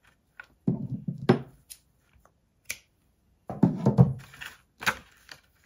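Hands handling a paper envelope and baker's twine on a wooden tabletop: two short bouts of rustling and light knocks, about a second in and again about four seconds in.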